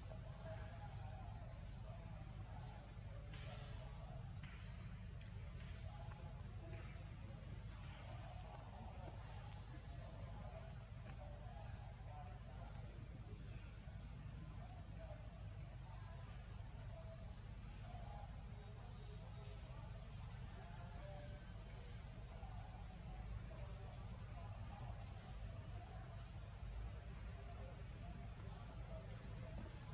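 A steady, high-pitched insect drone that holds one pitch throughout, over a low, even rumble.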